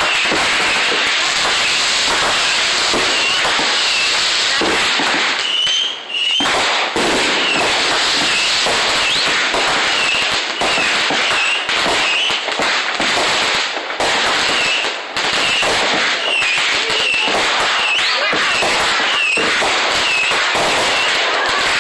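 Fireworks going off in a dense, continuous barrage of bangs and crackling, with short high whistling notes throughout; the loudness barely dips for more than a moment.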